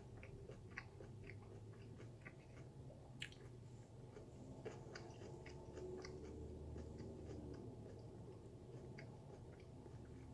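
Faint chewing of a mouthful of raw sweet potato, mouth closed: small, irregular crunches, several a second, over a low room hum.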